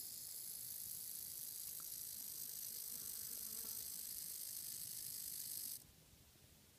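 Female ridge-nosed rattlesnake rattling her tail: a steady, high-pitched buzz that cuts off suddenly near the end.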